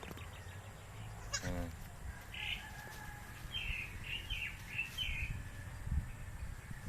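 A baby goat gives one short bleat about a second in, followed by a string of about six short, high-pitched chirps.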